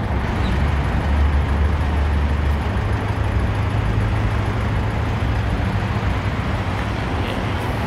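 A motor vehicle's engine running steadily, a low hum over a wash of background noise; the hum steps up slightly in pitch about two and a half seconds in.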